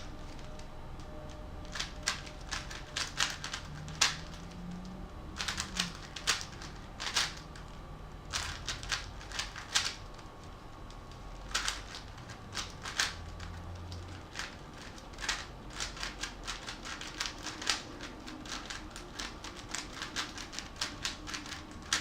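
Rubik's cube being turned rapidly by hand: quick runs of plastic clicks as the layers snap round, in clusters with short pauses between them.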